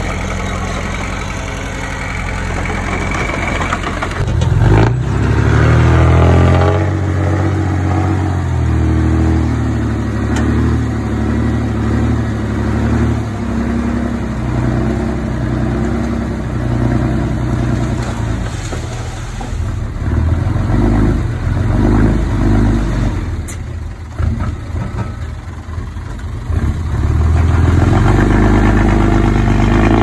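Diesel engine of heavy earthmoving machinery running under changing load. It runs steadily at first, revs up with a knock about four seconds in, then keeps rising and falling, eases off briefly, and runs hard again near the end.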